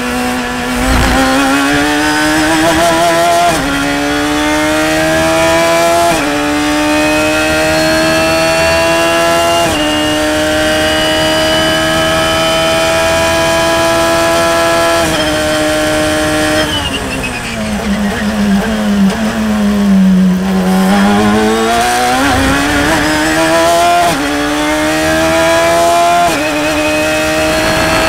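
Radical SR3 RSX's 1340 cc Suzuki Hayabusa-based four-cylinder engine at full throttle, heard from the cockpit, pulling up through the gears with a sudden drop in pitch at each upshift. About 17 seconds in it comes off the throttle and the pitch falls for a few seconds as the car brakes and downshifts, then it accelerates again with three more upshifts.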